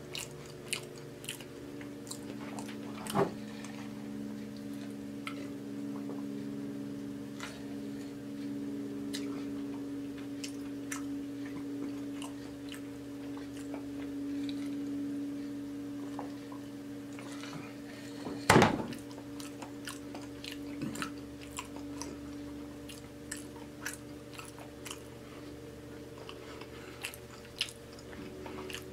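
Close-miked chewing and mouth sounds of a person eating, with many small wet clicks over a steady low hum. Two louder knocks stand out, one about three seconds in and one a little past the middle.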